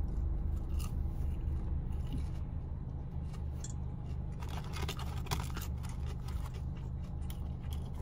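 Close-up chewing of crispy fried chicken nuggets: wet crunching and crackling, densest about halfway through and again near the end.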